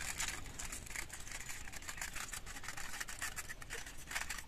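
Aluminium foil crinkling in a dense crackle of small clicks as it is pressed and crimped over the mouth of a paper cup.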